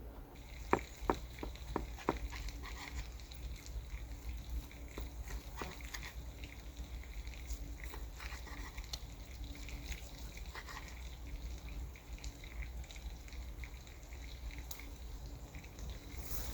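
Close-up eating sounds: wet chewing of food, with a few sharp clicks in the first two seconds and small scattered clicks after.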